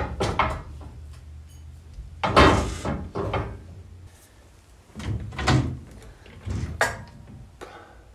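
A series of separate metal clunks and knocks from fitting a coil spring into a car's front lower control arm, with one longer scraping rattle about two seconds in.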